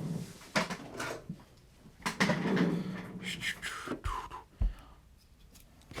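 A man's wordless vocalizing, a held hum-like tone with mouth noises, over a few sharp clicks of small tools being handled. A short low thump comes near the middle.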